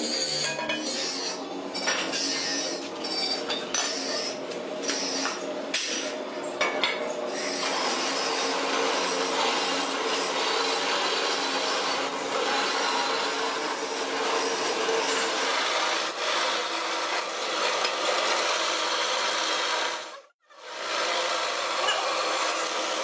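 Pillar drill press cutting into an iron electric-motor stator housing: a steady, rough rasping noise, with scraping clicks over the first several seconds. The sound drops out briefly near the end.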